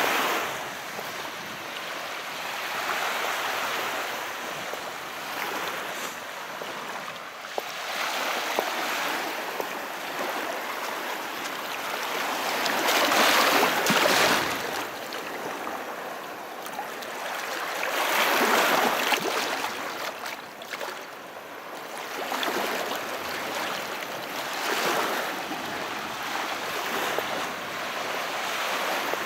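Calm sea with small waves washing ashore: a steady hiss of surf that swells every few seconds, with the two biggest waves breaking about halfway through and again about two-thirds through.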